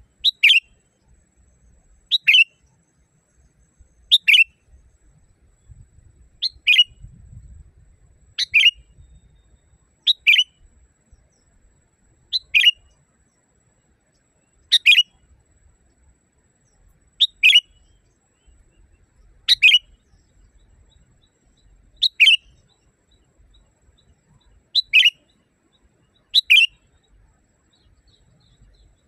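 Sooty-headed bulbul (kutilang) calling over and over: a short, sharp note that drops quickly in pitch, repeated evenly about every two seconds.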